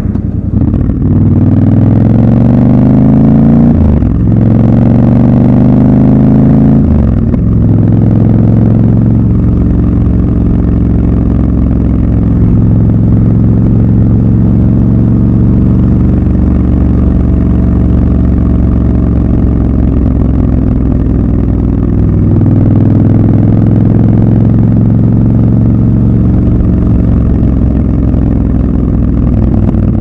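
Triumph Scrambler 1200 XC's 1200 cc parallel-twin engine accelerating, its revs rising and dropping at an upshift about four seconds in and again about seven seconds in, then running steadily at cruising speed with a small rise in revs later on.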